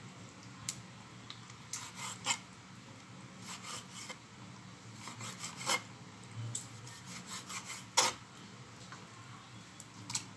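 Large kitchen knife slicing raw meat on a wooden cutting board, the blade scraping and knocking on the wood in irregular strokes, with one louder knock about eight seconds in.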